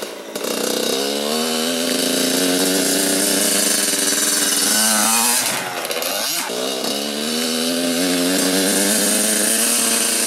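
Dirt bike engine under throttle as it rides up to and jumps a wooden ramp. The engine note climbs over the first few seconds, drops and wavers around the jump about halfway through, then rises again and holds as the bike rides off.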